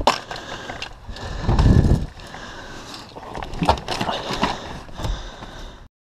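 Clicks, knocks and rustling from someone leaning into a car and handling a backpack on the back seat. A sharp click comes right at the start, there is a heavier rumbling stretch about a second and a half in, and the sound cuts off suddenly just before the end.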